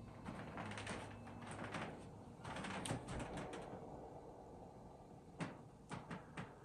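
Faint rustling and scuffing with a louder patch about halfway through, then a few soft knocks in quick succession near the end.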